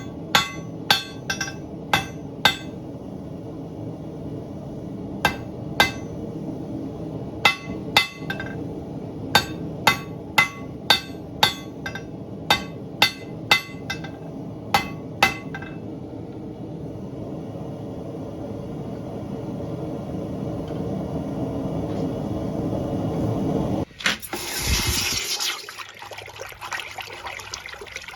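Hammer blows ringing on steel bar stock being forged into hooks, about two a second in two runs, over a steady rushing noise that grows louder. About 24 s in the rushing stops and a loud hiss follows, typical of hot steel being quenched, then water trickles.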